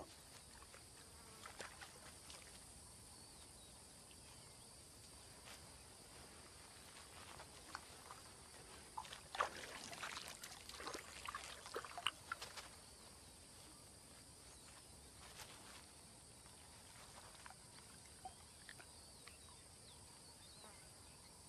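Very quiet ambience with a faint, steady insect buzz. Near the middle comes a cluster of soft scrapes and splashes as an African elephant digs into wet sand with its trunk and lets muddy water run from it.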